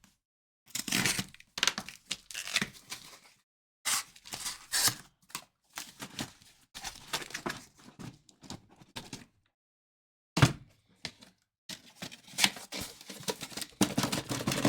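Packaging being opened: plastic wrap tearing and crinkling in irregular bursts, with cardboard handled and a few knocks as boxes of trading cards are set down.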